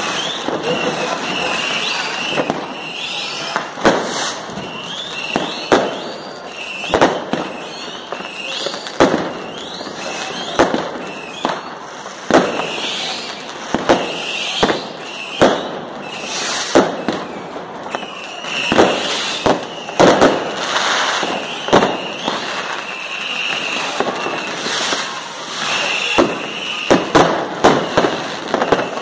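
Many fireworks going off overhead: sharp bangs of bursting rockets at irregular intervals, roughly one a second and coming in a quick cluster near the end, over a constant crackle and hiss with short high whistles.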